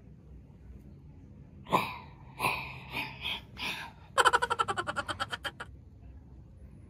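Laughter: a few short voiced bursts, then a fast run of giggling pulses, about nine a second for a second and a half, that stops sharply.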